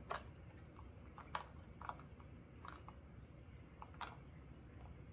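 A few light, sharp clicks and taps of a clear plastic card case being handled, its hinged lid flipped open.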